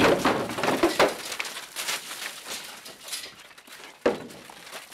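Elk hooves clattering and thumping on the floor of a stock trailer as the elk jump out onto hay and gravel, with knocks against the trailer, dying down after about two seconds.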